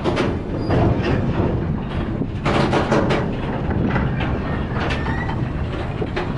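Container freight wagons rolling past close by: a steady rumble of steel wheels on rail with repeated sharp clanks and knocks from the wheels and couplings.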